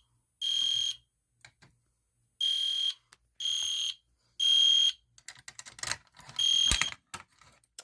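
EST Genesis horn strobe sounding in the temporal code-3 pattern: groups of three short high-pitched horn blasts about a second apart, with a longer pause between groups. It is somewhat muffled by tape stuffed inside the horn. One group finishes at the start, a full group of three follows, and a single blast about six seconds in opens the next group, with a few clicks around it.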